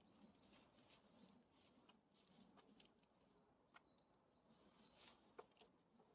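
Near silence: faint outdoor ambience with a few soft scattered clicks and faint high chirps.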